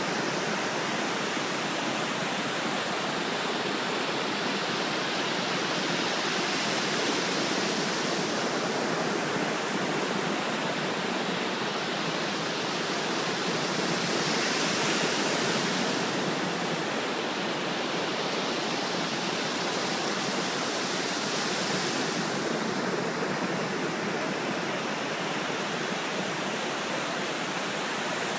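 Ocean surf on a beach: a continuous rushing wash of waves, swelling a little louder every several seconds as waves break.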